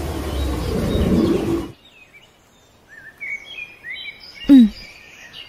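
A motor scooter's engine running, stopping abruptly about a second and a half in. Then birds chirping, with one brief voiced sound near the end.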